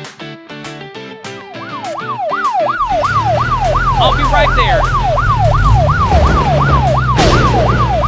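Police car siren wailing in fast up-and-down sweeps, about three a second, over a steady low engine rumble that comes in about three seconds in. A plucked music tune ends at the start.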